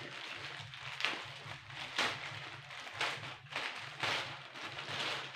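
Black plastic courier pouch rustling and crinkling as hands handle it and pick at its sealed end, in short crinkles roughly a second apart.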